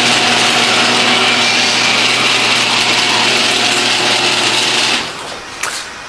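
Garage door opener motor running and driving a sectional garage door along its track: a steady mechanical whir with a constant hum, which cuts off suddenly about five seconds in as the door stops.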